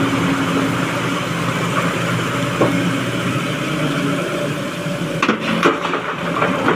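Sany crawler excavator's diesel engine and hydraulics running steadily as the boom swings and lifts. A few sharp knocks come a little after five seconds in.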